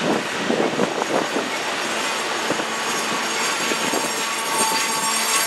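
Double-stack intermodal freight train rolling past at close range: steady wheel-on-rail noise from the container well cars, with a run of clanks and knocks over the first second or so as the trailing locomotive's trucks and the first car go by.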